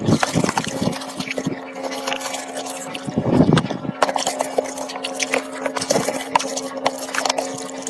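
A steady mechanical hum holding one pitch, with many irregular clicks, knocks and wet, liquid-like sounds over it.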